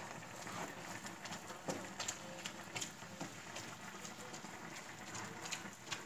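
Minced beef sizzling and crackling in a cast-iron skillet, a steady hiss with many scattered sharp pops and ticks.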